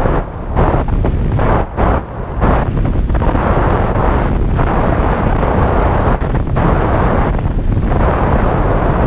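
Wind rushing over the microphone of a camera mounted on a radio-controlled plane in flight: loud, steady buffeting with a few brief dips in the first couple of seconds.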